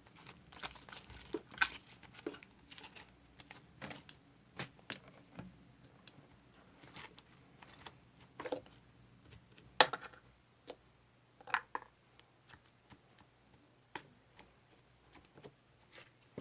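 Handmade slime being squeezed, stretched and pressed by hand, giving off irregular sticky clicks and crackling pops. The slime is partly melted and sticks to the hands.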